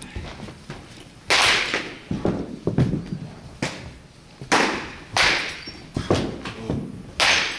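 Batting practice: a series of sharp cracks and thuds, one every second or two, as a baseball bat strikes pitched balls. Each crack rings briefly in the large indoor cage.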